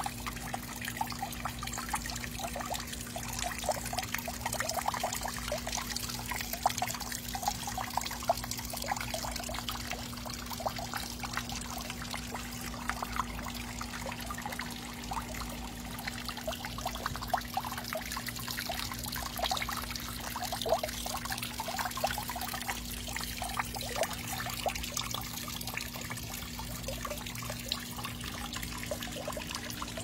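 Water from a small garden wall fountain trickling and splashing into its basin, steady throughout, over a faint steady low hum.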